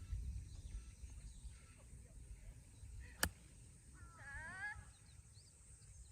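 A single sharp crack, like a golf club striking a ball, about three seconds in, followed about a second later by a short wavering bird call. Low wind rumble on the microphone throughout.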